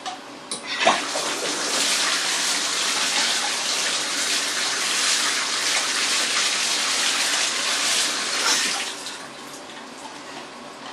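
Water running from a tap onto a part of a Bissell carpet shampooer as it is rinsed clean of soap. A couple of light knocks sound just before the flow starts, and the water cuts off about nine seconds in.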